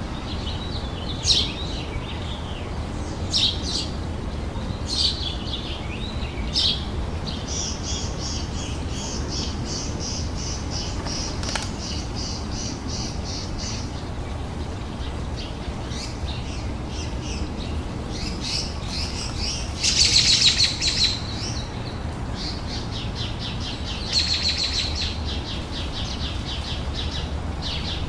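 Songbirds singing in a garden: short chirps repeated every second or two, rapid trills, and a louder burst of song about twenty seconds in, over a steady low background rumble.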